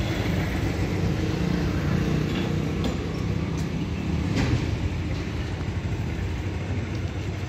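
A vehicle engine running steadily with a low rumble, with a few light clicks about three and four and a half seconds in.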